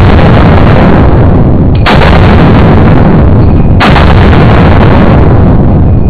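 A compensated Glock 17L 9mm pistol firing two shots about two seconds apart, each ringing on in a long echo in an enclosed indoor range bay; the echo of a shot fired just before carries through the start.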